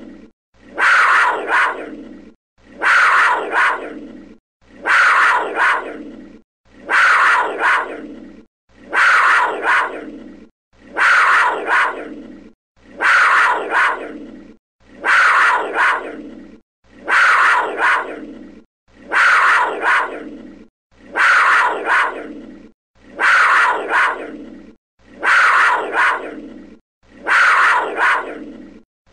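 A panther's growling call, the same short sample looped about every two seconds, some fourteen times. Each call starts sharply and loud, has a second smaller peak, then fades.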